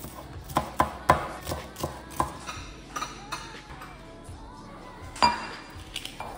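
Irregular sharp knocks and clinks of kitchen utensils and dishes, several close together in the first two seconds and the loudest about five seconds in, over background music.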